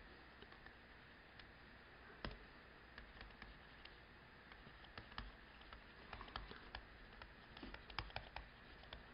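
Faint, irregular clicks and taps of a stylus writing on a tablet screen, a little busier in the second half.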